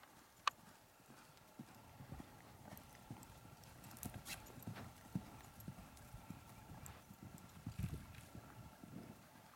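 Pony's hooves cantering on arena sand: faint, soft, uneven thuds, with a sharp click about half a second in and a few more clicks about four seconds in.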